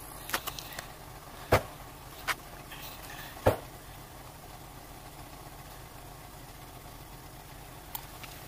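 A steady low hum with a few sharp knocks. The loudest knocks come about a second and a half in and again about three and a half seconds in, with lighter clicks near the start and toward the end.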